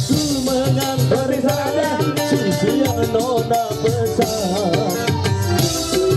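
Live band music with a singing voice through a microphone, over keyboard and guitar and a steady, evenly repeating drum beat.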